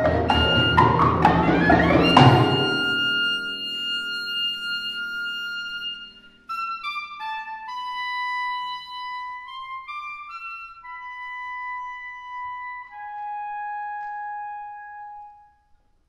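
Live chamber orchestra of strings, harp and percussion playing together with struck percussion accents, closing on a loud hit about two seconds in, after which a held high note rings and fades. Then a solo clarinet plays an unaccompanied melody of single stepping notes, ending on a long held note that stops just before the end.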